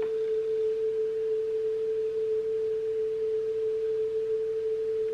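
A steady single sine-like test tone from a tape played on an AKAI CS-30D cassette deck and heard through an external speaker. Its pitch is almost exactly right, which shows the tape speed has been adjusted close to correct, with a slight wavering in pitch left over.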